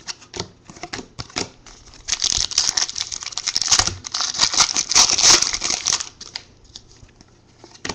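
Trading cards and their packaging being handled: a few light clicks and taps, then about four seconds of dense crinkling from about two seconds in, then a few more light clicks.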